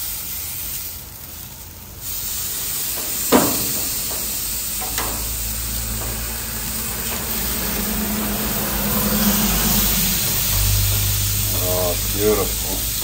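Thick tomahawk ribeye steaks sizzling steadily on the hot grates of a gas grill while they sear. About three seconds in, metal tongs give a sharp click as the steaks are turned.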